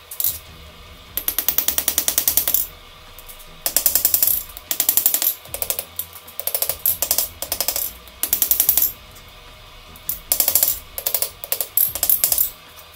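Hand hammer striking red-hot mild steel bar stock on an anvil, forging it, in quick runs of many blows separated by short pauses.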